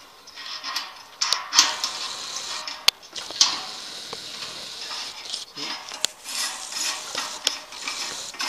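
Rustling and scraping handling noise on a satellite dish's metal mounting bracket, with leafy branches brushing close by, broken by sharp metallic clicks and knocks, the clearest about three and six seconds in.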